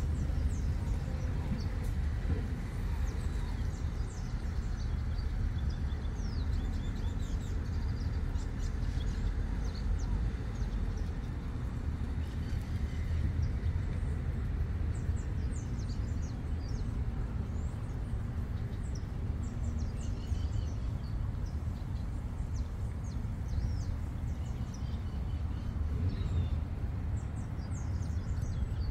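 Outdoor ambience: a steady low rumble under many short, faint, high bird chirps scattered throughout.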